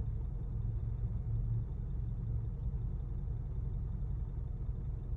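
Steady low rumble of a car heard inside its cabin. There are no distinct clicks or other events.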